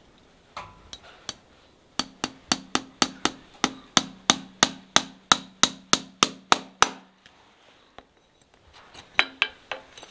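Farrier's driving hammer tapping on the nails of a horseshoe fitted to a horse's hoof: a few light taps, then a steady run of about twenty ringing metal strikes at roughly four a second, with a few more taps near the end.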